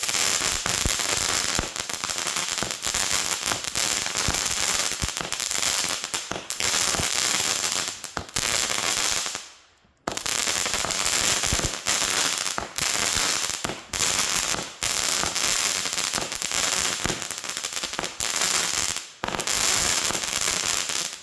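Consumer fireworks going off in a dense, rapid run of crackling pops and bangs, with a short break about ten seconds in and another shortly before the end.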